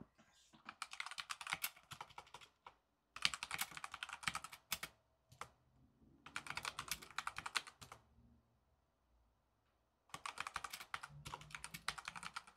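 Computer keyboard typing in four bursts of rapid keystrokes as words are entered, with short pauses between them and a two-second lull past the middle.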